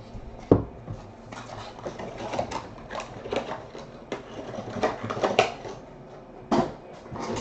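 Trading cards and a foil pack wrapper being handled on a tabletop: a sharp knock about half a second in, then a run of rustles and small clicks, and another knock near the end.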